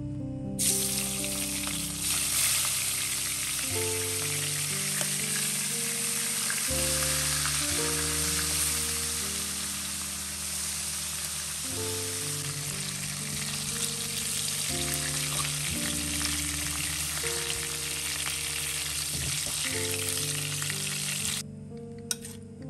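Whiteleg shrimp frying in hot oil in a wok: a steady, loud sizzle that starts about a second in and cuts off abruptly near the end.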